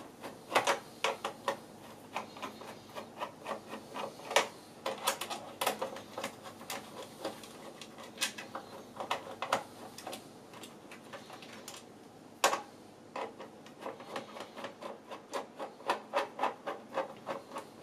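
Screwdriver undoing screws in a monitor's metal stand bracket: a steady run of small irregular clicks and scrapes of metal on metal, with a few louder sharp clicks.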